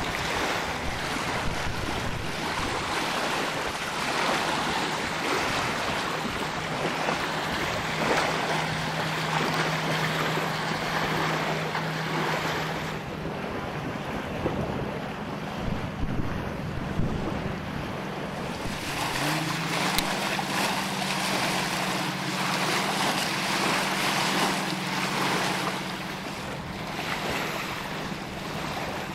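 Motorboat running on a lake: a steady engine hum under rushing water and wind buffeting the microphone. The engine note steps up about two-thirds of the way through.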